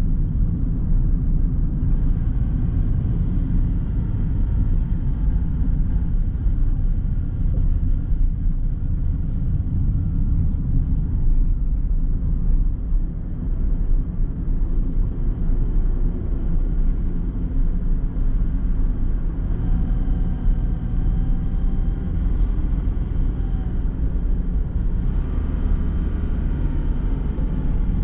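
Car being driven on a road: a steady low rumble of engine and tyre noise, with faint whining tones coming and going in the second half.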